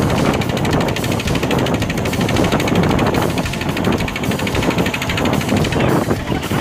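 A small wooden boat's engine running steadily under way, with a rapid, even beat.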